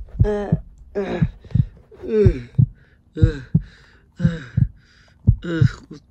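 A heartbeat sound effect: pairs of beats, lub-dub, repeating about once a second.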